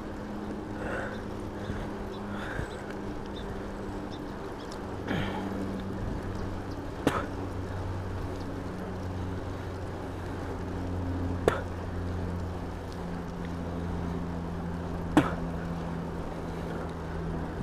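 RadRover fat-tyre electric bike riding on pavement: a steady low hum from the motor and tyres that drifts slowly in pitch, over wind and road noise. Three sharp clicks come about four seconds apart and are the loudest sounds.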